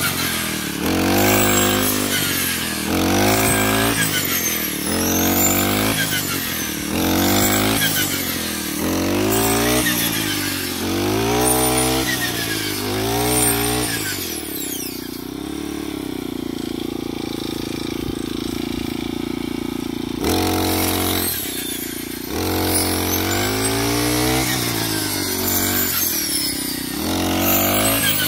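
Handheld brush cutter engine revving up and down about every one and a half seconds as its blade cuts through ripe rice stalks. For about six seconds in the middle it holds a steady, lower speed, then the revving starts again.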